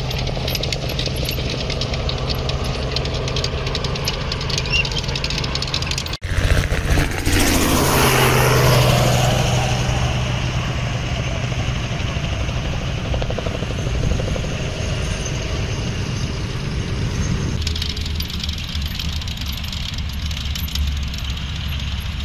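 Engines of WWII German half-tracks running as the vehicles drive across a field, a steady low drone. The sound changes abruptly about six seconds in, when it gets louder and more rushing for a few seconds, and again near eighteen seconds.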